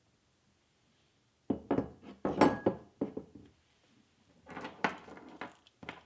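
Small metal parts clinking and knocking together as they are handled, in a busy run of taps and clinks about a second and a half in, then a second run and a last knock near the end.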